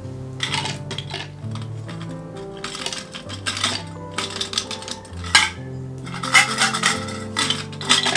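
Ice cubes clattering out of an insulated flask into a glass blender jug, in several rattling bursts, the loudest in the second half.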